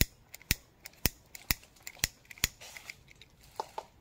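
Sharp taps about twice a second from a durian cutter in the tree tapping the fruit. The tapping is done to judge from the sound whether the durians are ripe enough to cut.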